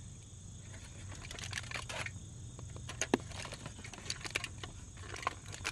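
Heavy-duty aluminium foil pack crinkling and crackling in irregular bursts as it is handled and worked open.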